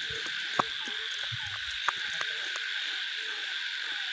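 Night chorus of insects, a steady high-pitched buzz, with frogs calling in short repeated notes. Two sharp clicks stand out, about half a second and two seconds in.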